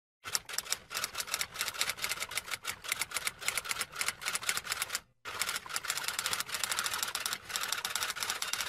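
Rapid typing, a fast irregular run of key clicks several times a second, broken by a short pause about five seconds in.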